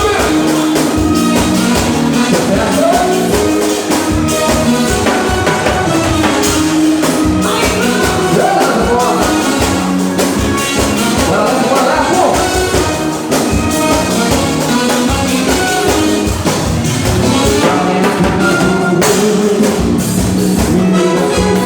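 Upbeat Latin-style dance music with singing over a steady beat.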